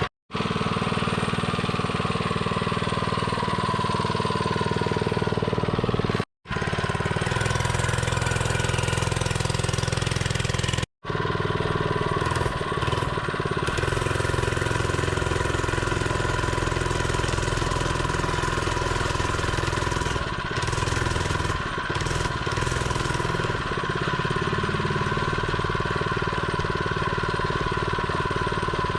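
Small single-cylinder mini bike engine running steadily, in a few spliced clips with brief cuts of silence between them.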